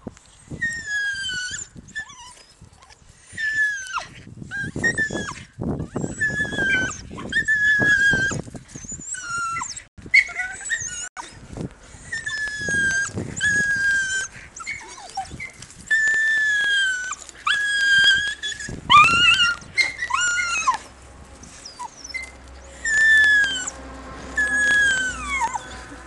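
A ten-week-old Jagdterrier puppy whining and yelping over and over in high, falling cries as it paws and bites at a wire cage trap, with bouts of scuffling and rattling between the cries.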